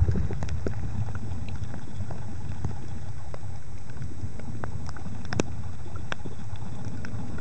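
Underwater sound picked up by a compact camera sealed in a plastic bag: a steady low rumble with scattered sharp clicks, one louder click about five seconds in.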